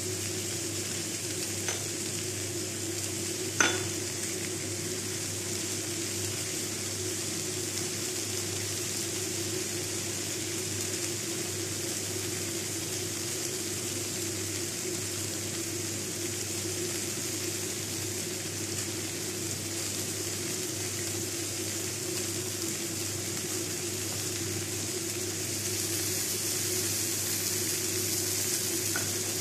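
Steady sizzling hiss of hot grilled chicken pieces on a foil-lined oven tray, over a low steady hum. There is one sharp click about three and a half seconds in, and the hiss grows a little louder near the end.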